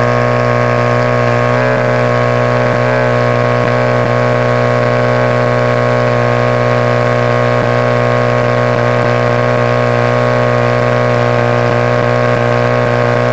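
Pump engine running at a constant speed with a steady, even drone, drawing water through a suction hose and a floating strainer.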